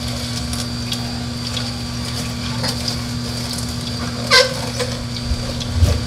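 Philips masticating slow juicer running with a steady low motor hum as its auger crushes leafy greens, with scattered small clicks and crackles and a sharper crack about four seconds in.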